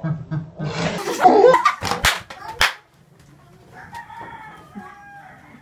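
Young women bursting into loud shrieking laughter, with two sharp knocks a little past halfway through the burst, then fainter high, drawn-out squeals of laughter.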